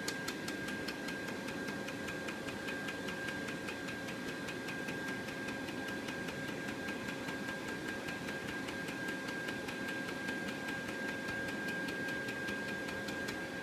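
Pulsed laser welder firing a steady train of pulses, heard as rapid, evenly spaced sharp ticks, over the machine's steady hum.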